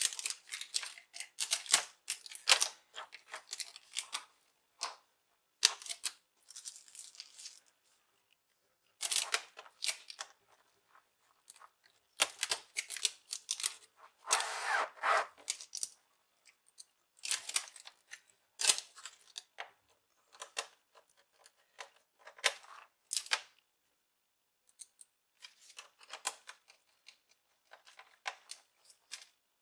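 Plastic laptop display casing and parts being handled and fitted: irregular bursts of small clicks, taps and scraping, with a longer scrape about halfway through and a few short pauses.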